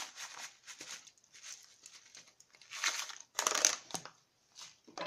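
Crinkling and rustling of a torn Jell-O powder packet being handled and shaken out, in irregular bursts, loudest about three to four seconds in.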